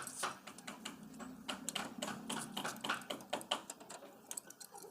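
Rapid, irregular clicking and tapping of tools and metal parts being worked during a hand-pump repair, several sharp strikes a second.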